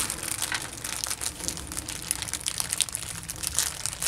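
Thin clear plastic wrapping crinkling as it is handled and pulled off a doll, an irregular run of small crackles.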